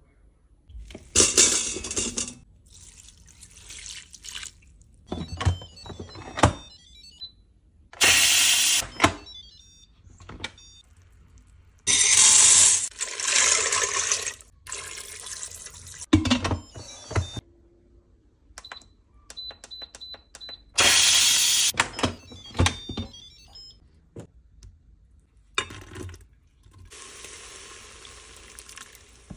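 A run of separate kitchen sounds at the stainless steel pot of an electric multicooker: liquid poured into the pot, sharp clicks and knocks, and a few short electronic beeps near the middle.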